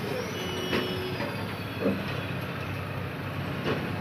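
A few short clunks as a split air-conditioner outdoor unit is handled and set onto its wall bracket, over a steady background noise.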